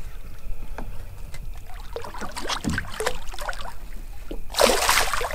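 Water splashing and lapping against a small fishing boat, with one louder splash about four and a half seconds in.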